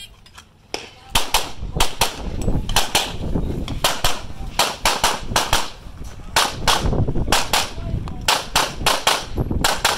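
Rapid pistol fire from a 9mm Walther Q5 Match Steel Frame: about twenty sharp shots, mostly in quick pairs, starting about a second in.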